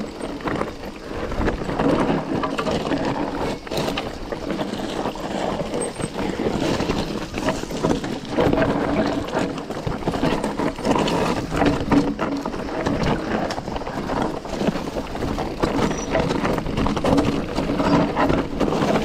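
Mountain bike riding down a rocky, dusty trail: tyres crunching over loose stones and the bike rattling, with many quick knocks as it hits rocks.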